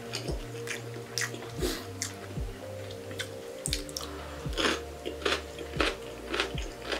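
Chewing and wet mouth sounds of someone eating soupy pork curry with rice, in short irregular strokes, over steady background music.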